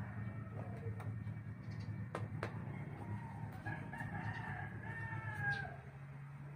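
A rooster crowing once, a single long call starting about three and a half seconds in that drops in pitch as it ends, faint over a steady low hum.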